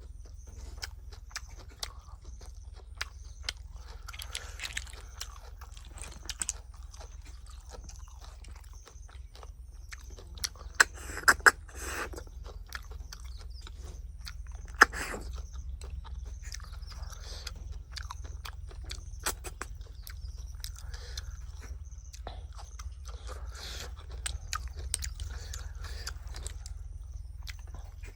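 Close-up eating sounds: irregular chewing and crunching, with sharp clicks that are loudest around the middle, over a steady low hum.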